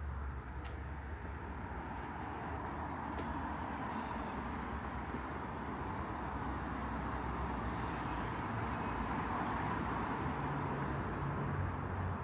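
Road traffic: a steady rush of passing vehicles over a low rumble, slowly growing louder.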